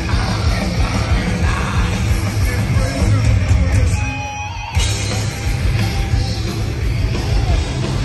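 Metalcore band playing live at full volume: heavy distorted electric guitars, bass and drums. The band breaks off for under a second about halfway through, leaving only a thin ringing, then crashes back in.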